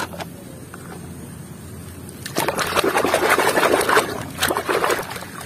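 Soapy, muddy water sloshing and splashing in a basin as a small plastic toy motorbike is swished and scrubbed in it by hand. The splashing starts about two seconds in and lasts about two seconds.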